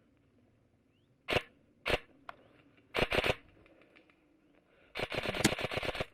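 Airsoft electric rifle firing: two single shots, a short burst about three seconds in, then a rapid full-auto burst lasting about a second near the end.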